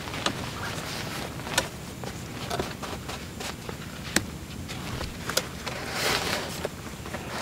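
Nylon tent fabric rustling as a dome tent is pitched, with a few sharp clicks as the frame and poles are handled, and a longer rustle near the end.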